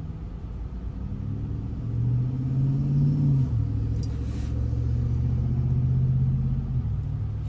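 Car engine and road rumble, heard from inside the car. The engine note rises, drops abruptly about halfway through, holds steady, then falls back near the end.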